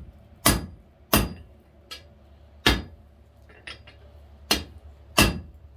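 Hand hammer striking red-hot half-inch square mild steel laid across a cutting hardy in the anvil, cutting a notch part-way through the bar. About six sharp, ringing blows with a gap and a few light taps near the middle.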